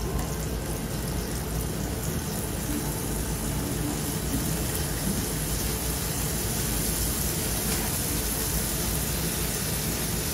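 Steady rushing noise of a commercial kitchen's cooking line: food frying in a wok on a gas range, stirred with a spatula, under a running extractor hood.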